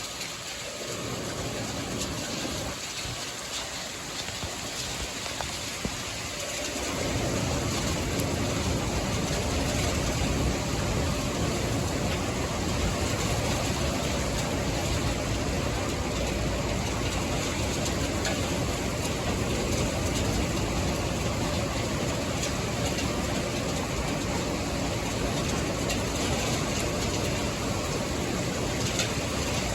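Heavy rain and strong wind of a severe thunderstorm: a steady noise that grows louder and deeper about seven seconds in as the wind picks up.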